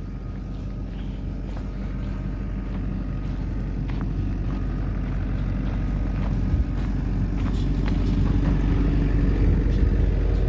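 Steady low engine rumble, growing gradually louder.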